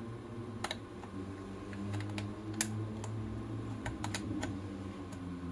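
A handful of light plastic clicks and taps as 14500 lithium cells are pressed and wiggled in a two-bay battery charger, trying to make contact against its weak springs. A low steady hum runs underneath.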